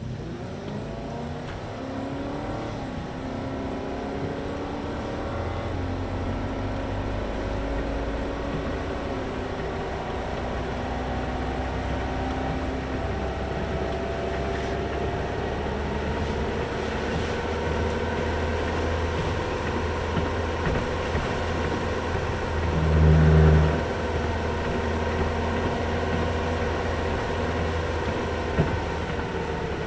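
Car engine and tyre noise heard from inside the cabin as the car accelerates, its pitch rising over the first few seconds, then cruising steadily. A brief, louder low rumble comes about 23 seconds in.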